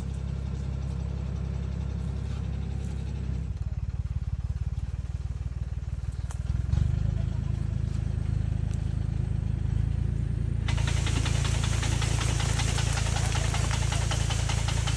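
Engine of a rope-type tree shaker running steadily, its low drone shifting about three and a half seconds in and growing louder about seven seconds in. A loud steady hiss joins it about eleven seconds in.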